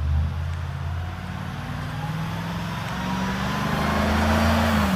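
Road vehicle engine running with a steady low hum and road hiss. Its pitch rises slowly as it speeds up, growing a little louder near the end.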